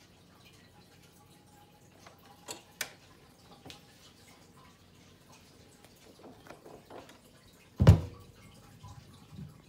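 Turntable being set to play: a few sharp mechanical clicks from the tonearm, then just before the end a single loud, deep thump through the speakers as the stylus drops onto the spinning vinyl record, followed by faint ticking from the groove.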